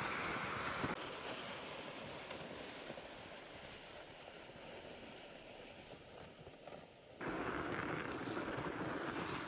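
Steady rushing noise of wind on the microphone. It drops suddenly with a click about a second in, sinks lower, and jumps straight back up after about seven seconds.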